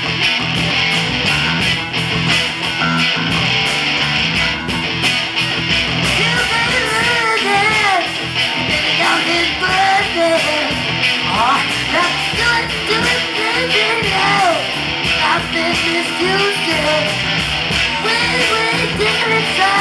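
A live rock band playing loud through amplifiers: electric guitars, bass and a steady drum beat, with a singer on top.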